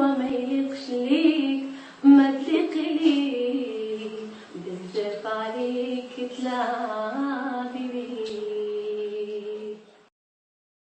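A female voice singing a slow melody in long held notes, breaking off abruptly about ten seconds in.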